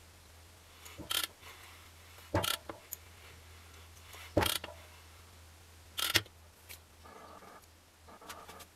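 A few sharp metal clicks and knocks as engine parts are handled and fitted at the cylinder of a two-stroke motorcycle engine during assembly, four in all, the third the loudest, over a steady low hum.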